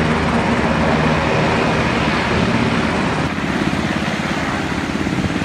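US Coast Guard helicopter running close by: a loud, fast rotor beat over turbine noise, the beat growing more distinct a little past halfway.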